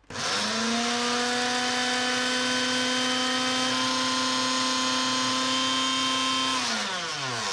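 Small electric food processor blending cooked peas into mush. The motor spins up at once, runs at one steady pitch for about six seconds, then is switched off and winds down with a falling pitch near the end.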